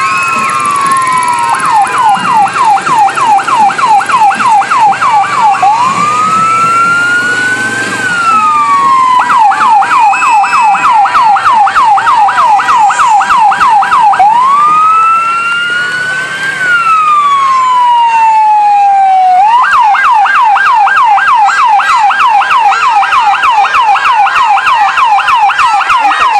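Loud electronic emergency-vehicle siren switching between a fast yelp, about five sweeps a second, and a slow rising-and-falling wail. It runs three passages of yelp with two wails between them.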